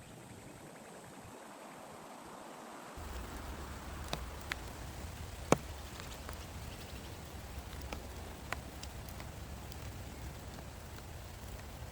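Rain falling, with single heavy drops landing in sharp, scattered taps, the loudest about five and a half seconds in. A low steady rumble joins about three seconds in.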